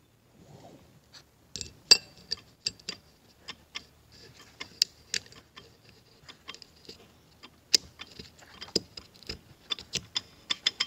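Irregular metallic clicks and ticks from a TH350 transmission's roller clutch and the drum around it as the drum is worked on and turned by hand, the rollers clicking in the clutch's freewheeling direction. The clicks start about a second and a half in and come faster toward the end.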